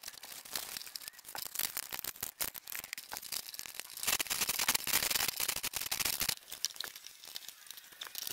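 Handling noise from working plastic drain fittings by hand overhead: crinkling and rustling with many small clicks. A denser, louder stretch of rustling comes about four seconds in and lasts about two seconds.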